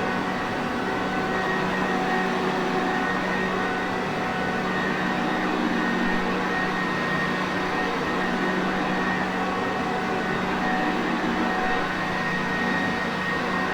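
Sanitaire Perfect vacuum cleaner motor running steadily: a constant rushing noise with a low hum and a faint higher whine held at one pitch.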